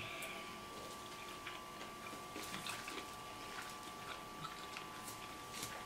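Faint, scattered small clicks and crackles of hands working through a seafood boil, crab and shrimp shells being pulled apart, over a faint steady hum.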